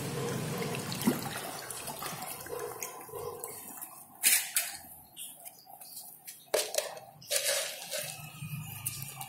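Water splashing and rippling in a concrete tank of red tilapia: a steady wash at first, then quieter, broken by a few sharp splashes, the loudest a little over four seconds in.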